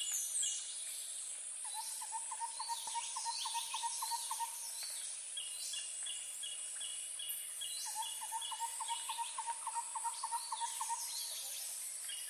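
Tropical forest birds and insects. One bird repeats a low note about four times a second in two runs of about three seconds each, the second starting about eight seconds in. Other birds give rows of short higher notes, over a steady high insect whine.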